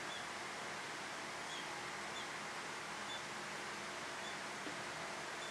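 Steady background hiss with a few faint, short, high bird chirps spaced a second or so apart.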